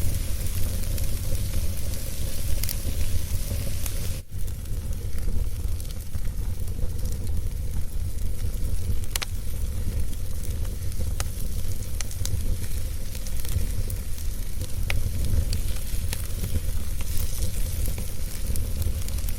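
Wood fire burning in a fireplace: a steady hiss over a deep rumble, with scattered sharp crackles and pops. The sound dips out briefly about four seconds in.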